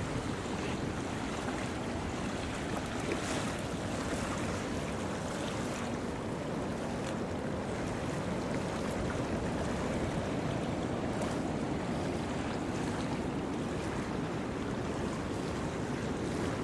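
Hurricane Sandy's wind and surf on a beach, a steady, unbroken rush of noise.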